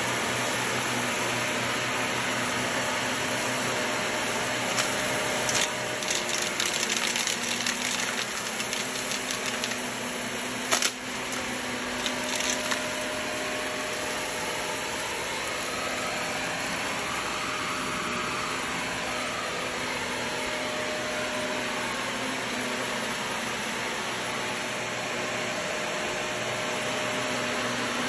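Shark upright bagless vacuum cleaner running steadily on carpet. Bursts of crackling and a sharp click between about five and thirteen seconds in are debris being sucked up and rattling through the head into the dust bin.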